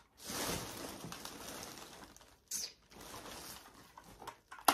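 Packaging of an eyeshadow palette rustling as it is worked open by hand, in two long stretches, with a few sharp clicks near the end.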